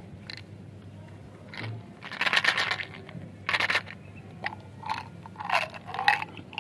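Plastic tube of candy-coated chocolate beans being handled and its cap opened, with scraping, crunchy noises in two longer bursts, followed by several short rattling clicks as the beans tumble out into a hand.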